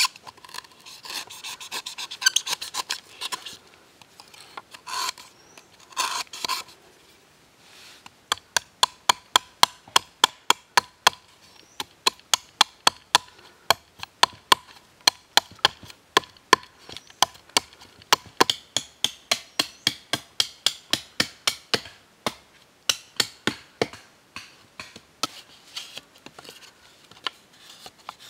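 Large knife blade working green bamboo: for the first few seconds it scrapes and shaves the wall, then it settles into a long run of quick, sharp chopping strokes, about three a second, as it cuts a slot into the bamboo tube.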